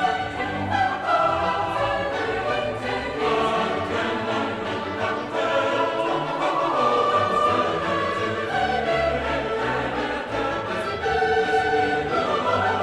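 Background music: choral and orchestral music with held sung notes over strings.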